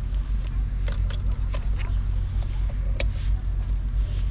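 Steady low rumble with a few clicks and knocks, the sharpest about three seconds in, as gear is lifted out of a car boot.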